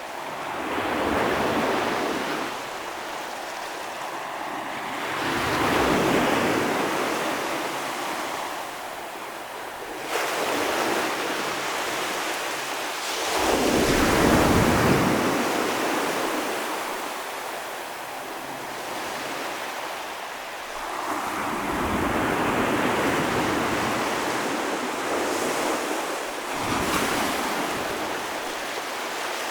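Ocean surf: waves breaking and washing up the shore in surges every few seconds, each one swelling and then fading away.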